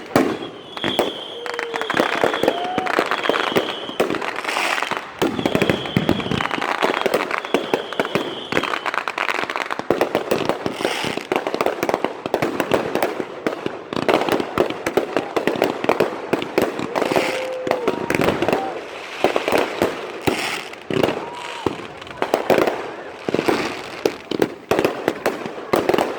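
Dense, continuous popping and crackling of firecrackers and fireworks, with several short high whistling tones in the first ten seconds.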